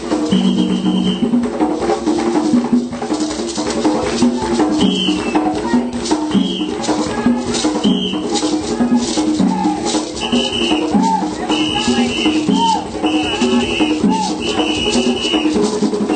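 Live African-style song and dance music: rattles shaking in a steady rhythm under a chanted melody, with short high piping notes, more of them in the second half.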